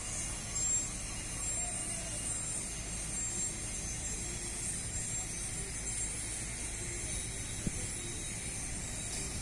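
Steady background rumble of distant vehicles, with a thin high hiss over it.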